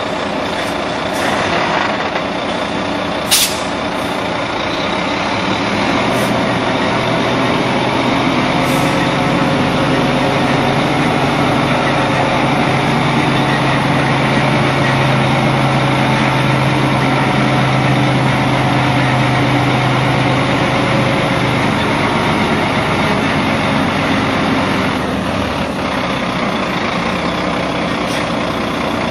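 Three-axle tipper truck's diesel engine running steadily as the truck drives and manoeuvres, with a few short air-brake hisses in the first nine seconds or so.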